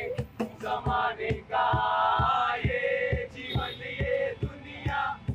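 A group of men singing and chanting together over a cajón beat, the drum striking a steady low thump about three times a second.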